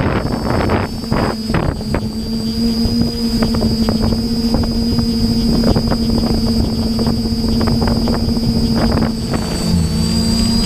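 DJI FPV quadcopter's propellers and motors buzzing at a steady pitch, heard from on board, with wind gusting over the microphone. The pitch dips briefly near the end, then comes back up.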